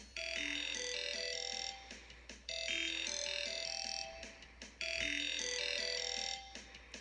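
Synthesized MIDI rendition of a Sony Ericsson mobile phone ringtone: a short electronic melody phrase played three times in a row, each phrase fading briefly before the next begins.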